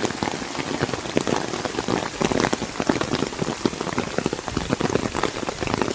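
Steady rain falling hard, drops striking a surface close by in a dense, irregular patter of sharp taps.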